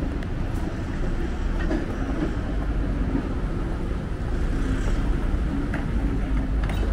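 Steady low rumble of vehicles in city street noise, with a faint hum and a few light clicks.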